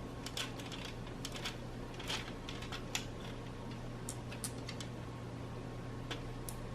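Mini marbles clicking along a plastic marble run: scattered light clicks at irregular intervals.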